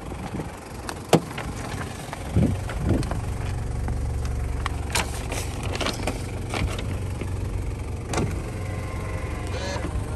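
Toyota Hilux Surf's 1KZ-TE four-cylinder turbo diesel starting about two and a half seconds in, then idling steadily. A sharp click comes about a second in, and a few lighter clicks and knocks sound over the idle.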